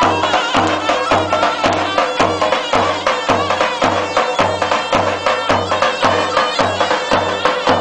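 Traditional folk dance music: an ornamented wind-instrument melody over a steady drum beat of about two beats a second.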